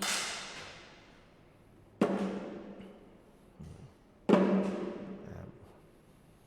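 A large drum beaten by cheering supporters: three heavy strokes about two seconds apart, each booming and ringing away, with fainter knocks between them.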